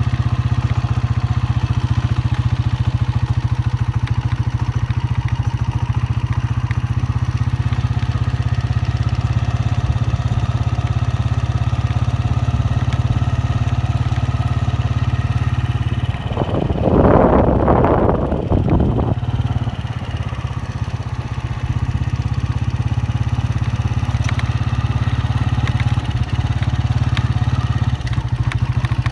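Honda 125 motorcycle's single-cylinder four-stroke engine running at a steady pace. About halfway through there is a louder rushing noise lasting roughly three seconds.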